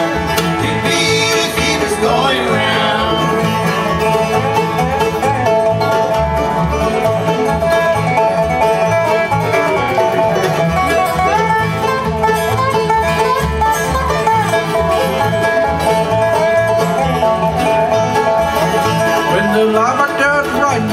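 Live bluegrass band playing: strummed acoustic guitars, mandolin and a resonator guitar (dobro), over a steady upright-bass beat.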